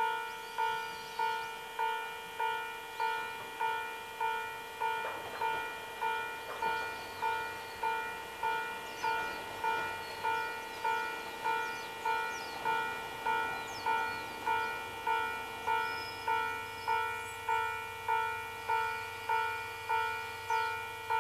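Japanese railway level crossing alarm ringing steadily, a two-tone electronic 'kan-kan' strike about one and a half times a second, while a JR Shikoku diesel railcar comes into the station with a faint low engine hum growing in the latter half. Small birds chirp now and then.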